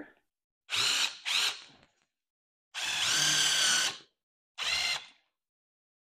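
Cordless drill spinning up in four bursts: two quick ones, a longer run of over a second, then another short one. It is drilling through the vinyl upholstery at the seat frame's mounting points.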